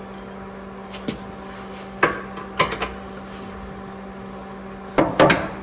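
Scattered metallic clinks and clanks of a hand wrench on steel suspension hardware while the rear traction arm bolt is tightened: single clinks about a second and two seconds in, two more shortly after, and a quick cluster near the end.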